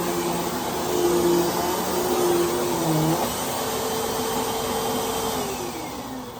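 Hoover Whole House Rewind upright vacuum cleaner running with a steady motor hum and airflow hiss; near the end its motor pitch slides down and the sound fades as it winds down.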